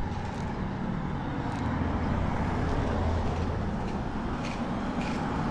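Road traffic: a motor vehicle running close by over steady road noise, its low engine hum easing off about three and a half seconds in.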